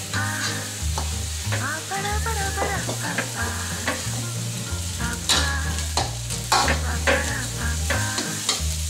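Fried rice sizzling in a hot metal wok while a metal spatula stirs and scrapes through it, with a couple of sharper spatula-on-wok clinks midway. Background music plays underneath.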